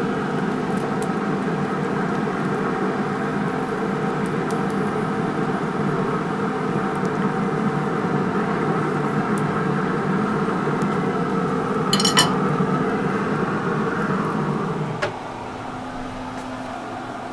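Pit Boss pellet grill running over an open flame, a steady hum with hot links sizzling on the grate, and metal tongs clinking against the grate as the links are turned, the sharpest clink about twelve seconds in. The hum and sizzle stop about fifteen seconds in.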